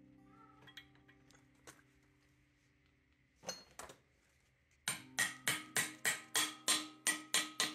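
Oil seal being driven into a motorcycle's aluminium crankcase by hammering on a length of steel pipe: about ten sharp, ringing metal strikes, roughly three a second, starting about five seconds in. Before them, a few light clinks of metal parts over faint background music.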